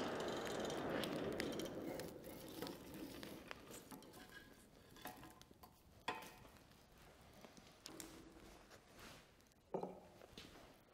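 Faint clinks and knocks of an iron poker working burning coal in a forge firepot, with crackling from the fire. A rushing noise fades out over the first two seconds, and there is a sharper knock about six seconds in and another near the end.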